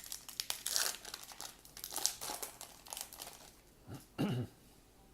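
Baseball card pack wrapper crinkling and being torn open by hand, in quick crackly rustles. A short low sound about four seconds in, then quiet.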